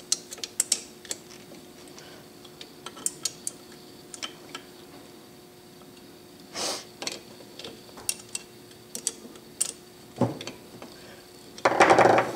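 Scattered sharp metallic clicks and taps from a hand tool tightening the four draw bolts that clamp the end bells of a 1.5 hp electric motor, with a louder clatter near the end.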